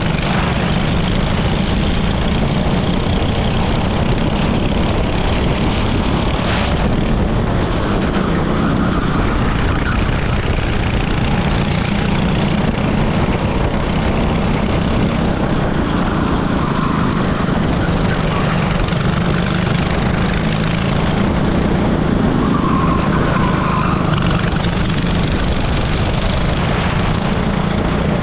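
Onboard sound of an 18 hp super kart's engine running hard at speed through a lap: a loud, steady engine drone.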